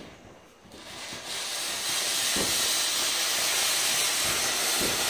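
Ground fountain firework spraying sparks with a loud, steady hiss that builds up over the first two seconds. A couple of low thumps sound in the middle and near the end.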